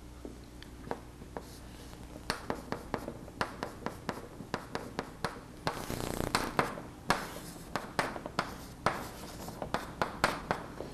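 Chalk on a chalkboard: a quick run of taps and short scratching strokes as small marks and figures are drawn, with a longer scratching stroke about six seconds in.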